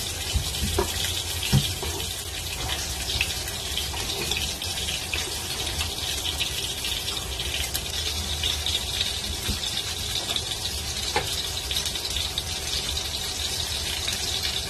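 Pork frying in hot oil in a pan: a steady sizzle throughout, with a few faint knocks of handling on a plastic cutting board.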